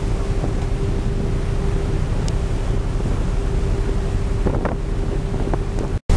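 Sightseeing boat's engine running steadily, a low rumble with a steady hum, mixed with wind buffeting the microphone and water rushing past the hull. The sound cuts out for a moment near the end.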